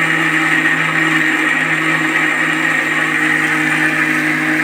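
Indian mixer grinder (mixie) motor running at a steady pitch, grinding mango pieces into a paste in its steel jar.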